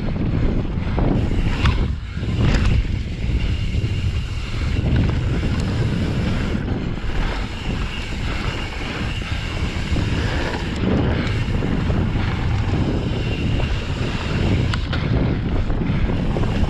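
Wind rushing over a handlebar-mounted action camera's microphone while a Pyga Hyrax mountain bike rolls fast along a dirt singletrack: a steady rushing rumble from the knobby tyres and moving air, with a few sharp knocks and rattles from the bike over bumps.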